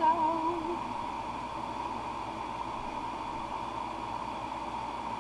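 Steady hiss of electric fans running, with a constant faint hum. In the first second, a short wavering pitched sound like a voice, the loudest moment, then only the fan noise.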